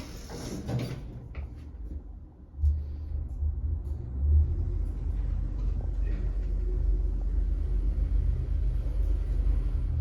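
Passenger lift car travelling: a few light clicks, then from about two and a half seconds in a steady low rumble as the car moves.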